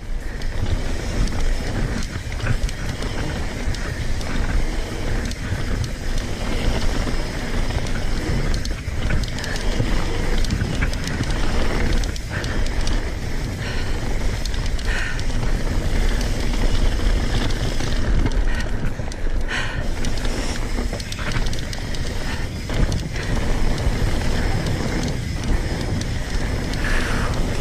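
Mountain bike riding fast down a dirt singletrack trail: a steady rush of tyre noise on packed dirt, with scattered clicks, knocks and rattles from the bike over bumps.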